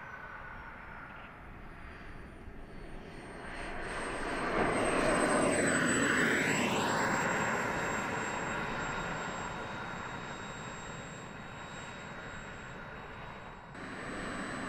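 Radio-controlled model jet's engine whining high and steady as it comes in to land, growing to its loudest as it passes close about five seconds in, then easing off as it rolls out on the runway.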